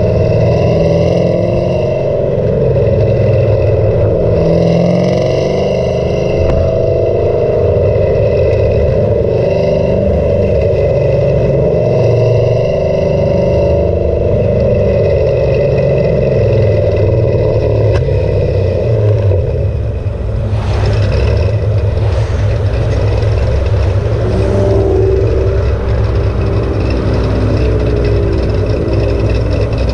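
Exhaust note of a cammed Camaro SS V8 with an MBRP exhaust, running under way. About 20 seconds in the note changes and eases off toward a lower, steadier running near idle.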